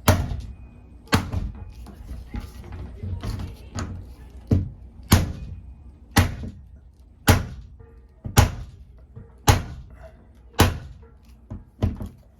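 Hammer blows on a manual impact screwdriver, sharp metal strikes about once a second, driving at a corroded, stripped screw in a shower to break it loose.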